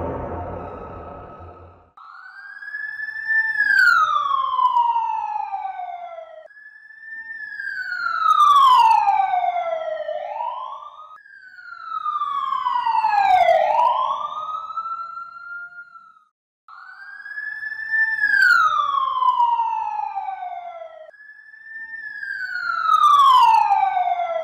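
Siren-like end-screen sound effect: a wailing tone that slides down from high to low and hooks briefly upward, repeated five times about every four and a half seconds with abrupt cuts between repeats. The tail of background music fades out in the first two seconds.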